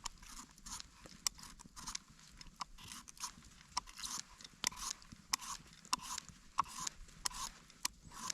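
A zucchini being cut up by hand: a run of short, crisp crunches and scrapes at an irregular pace, about one or two a second.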